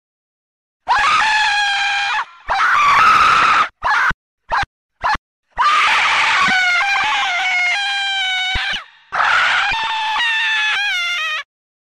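A woman screaming, high-pitched, in a run of separate screams broken by brief silences. Two screams of about a second each come first, then several very short sharp bursts, then two longer drawn-out screams whose pitch steps and wavers.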